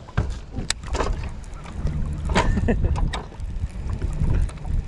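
Wind rumbling on the microphone aboard a fishing boat, with a few sharp clicks and knocks of gear.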